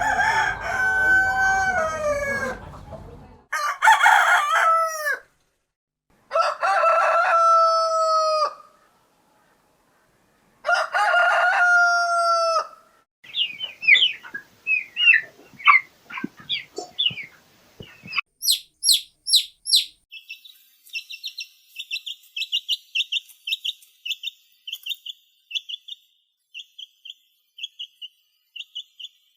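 Rooster crowing: four long crows, the first already under way. From about 13 seconds in, a different bird takes over with rapid high chirping calls in quick series.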